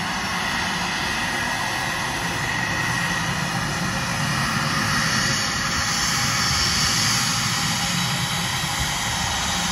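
Boeing 717's twin Rolls-Royce BR715 turbofans running at taxi power as the jet turns on the runway, a steady jet hiss and whine. The hiss grows brighter and a little louder about halfway through as the aircraft swings round.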